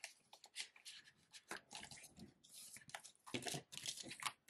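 Paper banknotes and a clear vinyl cash envelope rustling and crinkling as they are handled, in a quick, irregular run of short rustles.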